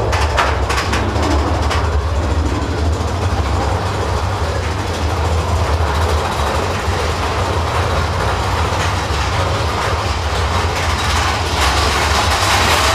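Big Thunder Mountain Railroad mine-train roller coaster running through a tunnel, heard from aboard: a steady heavy low rumble of wheels on track, with sharp clacks in the first second.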